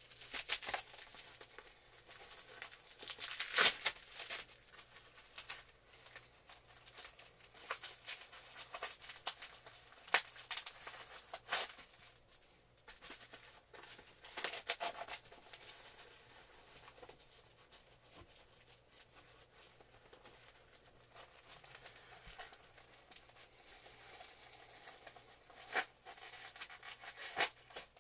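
A shipping package being opened and unwrapped by hand: plastic and paper packaging tearing and crinkling in irregular bursts, with scattered clicks and rustles. The loudest bursts come a few seconds in, around ten seconds in, and again near the end.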